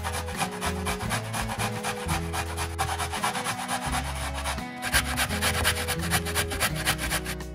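Music with a bass line and held chords under a fast, even, scratchy percussive beat.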